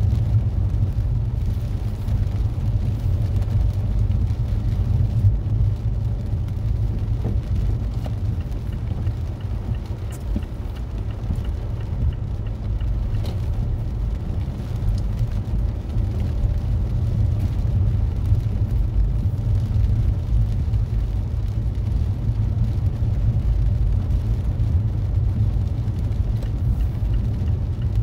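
Mazda 3 driving, a steady low road rumble heard from inside the car's cabin.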